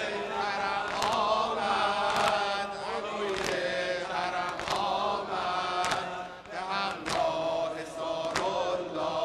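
Male voices chanting a Shia Muharram mourning lament in unison, over a steady rhythm of sharp chest-beating slaps from the congregation (dodameh style).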